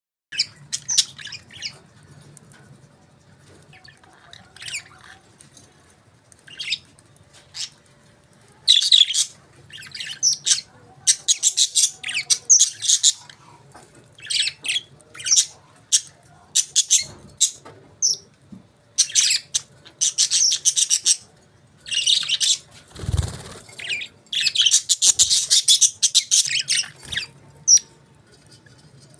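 Budgerigars chirping and chattering in quick, high-pitched bursts, heavier and more continuous in the second half. There is one brief low rustle or bump about two-thirds of the way through.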